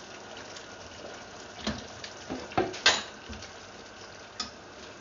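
A spatula stirring sliced onions and bell peppers in a pan of boiling vinegar sauce: a steady bubbling hiss, with a cluster of knocks and scrapes against the pan around the middle and one more near the end.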